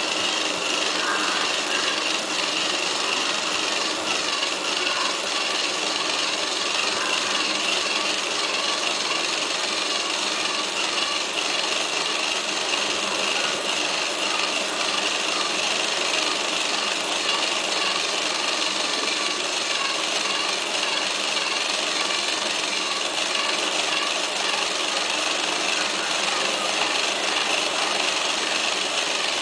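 Small DC steering motor running steadily, turning a lead screw that swings the wheels of a model wheel-steering linkage; an even, unbroken motor whine.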